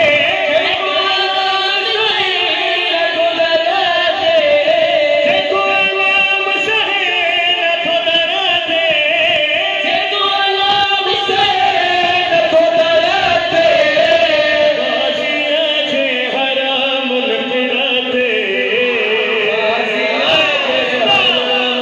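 A group of men singing a devotional song into microphones, a lead voice with several backing voices, in long, wavering held notes.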